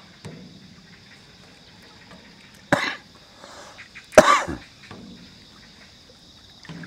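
Two loud coughs about a second and a half apart, the second the louder and longer.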